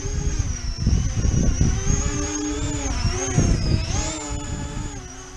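Convergence VTOL model aircraft hovering in tricopter mode: its electric motors and propellers whine, the pitch wavering up and down with a dip and a rise about three to four seconds in. Wind buffets the microphone with a heavy low rumble.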